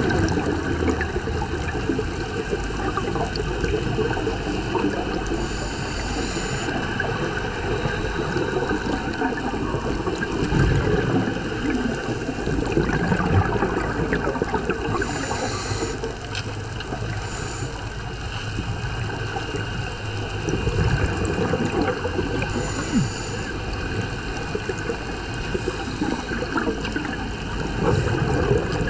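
Underwater sound picked up by a diver's camera: a steady muffled rush full of crackling, with a brief hiss every several seconds and bubbling typical of a scuba diver breathing through a regulator.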